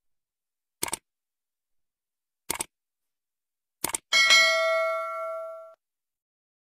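Subscribe-button animation sound effects: three short mouse clicks about a second and a half apart, then a bell notification ding that rings for about a second and a half before fading.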